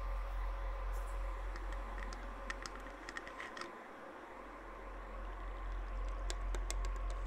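Ambient electronic music: a deep steady drone with held tones. Scattered light tapping clicks sit over it, in a cluster from about a second in to about four seconds in and again near the end.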